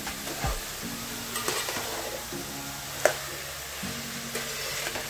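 Spoon stirring chopped mushrooms and capsicum in a metal pan of hot masala, with a light sizzle of frying and scattered scrapes and taps of the spoon against the pan. One sharp clink of the spoon on the pan about three seconds in.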